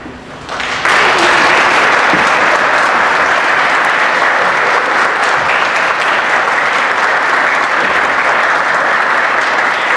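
Audience applauding: the clapping swells quickly about a second in, then holds steady and dense.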